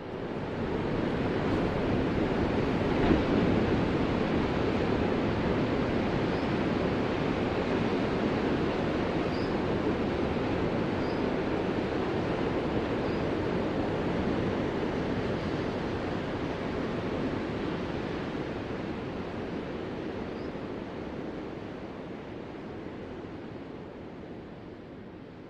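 Ocean waves washing on the shore in a continuous rush of surf. It fades in at the start and slowly fades out toward the end.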